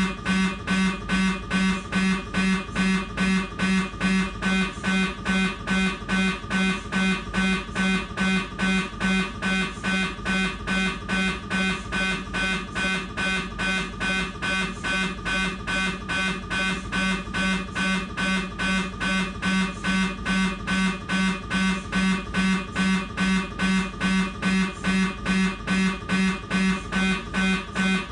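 Siemens MAGNETOM Lumina 3 T MRI scanner's gradient coils buzzing in a fast, even rhythm of pulses during a T2 BLADE fat-saturated transverse abdomen sequence, with a strong low buzz and higher tones above it.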